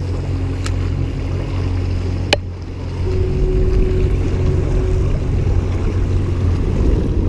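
Boat motor running steadily under way, with a single sharp click a little over two seconds in; the engine note gets a bit louder about three seconds in.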